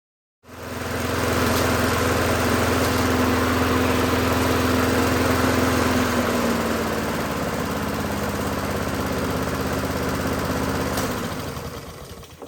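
Honda GCV160 single-cylinder engine on a Snapper walk-behind mower running steadily, cutting in suddenly; its pitch drops slightly about halfway through, then it fades and cuts off just before the end.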